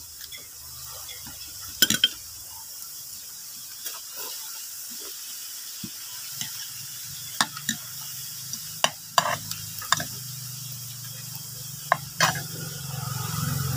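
Metal fork and spoon clinking and scraping against a plate while eating, in scattered sharp clicks. A low hum swells near the end.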